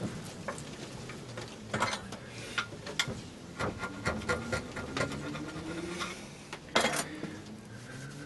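A screwdriver blade scraping old paint off a painted metal mini lathe part clamped in a bench vise: irregular scratches and clicks of metal on metal, with one louder clack about seven seconds in. Near the end, paint flakes are brushed off with a rag.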